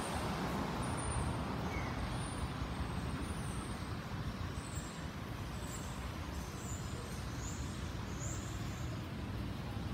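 Steady low rumble and hiss of a subway train receding into the distance along an elevated line, with no sharp sounds.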